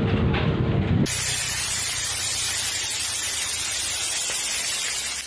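A low rumbling noise that cuts off abruptly about a second in, then a dense, steady hiss of fine particles pattering onto a surface, as in a fall of volcanic ash and rain.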